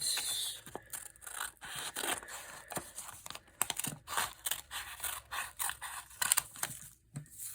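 Scissors cutting a sheet of paper in a run of irregular crisp snips, with the paper rustling as it is handled.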